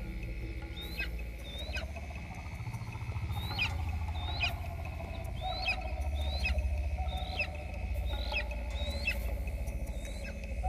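A juvenile animal's chirps: short, high calls, each a quick downward sweep, repeated about once a second, over a low steady drone.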